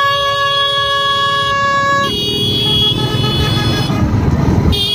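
Vehicle horns honking in long, steady blasts: one held for about two seconds, then a lower-pitched one, and a short blast near the end, over the steady low rumble of motorcycle engines and road noise.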